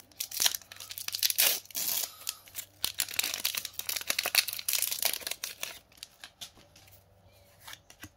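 Foil wrapper of a Pokémon Sun & Moon booster pack crinkling and tearing as it is opened by hand for about six seconds, then a few light clicks as the cards are handled.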